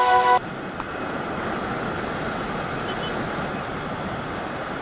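Steady rush of wind and road noise on the microphone of a moving motorcycle. Electronic music cuts off about half a second in.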